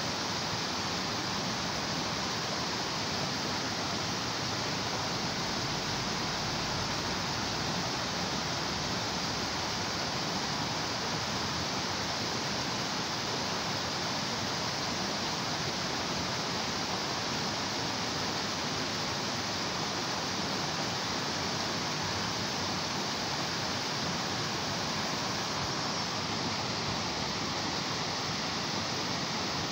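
Shallow rocky stream rushing over small cascades: a steady, even rush of water that does not change.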